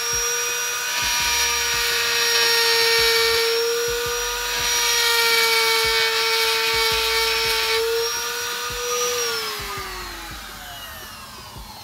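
Handheld rotary grinding tool running with a steady high whine, burring metal off a car's rear brake spindle to clear the big-brake caliper bracket, with two stretches of heavier grinding hiss. About nine seconds in it is switched off and the whine falls away as it spins down.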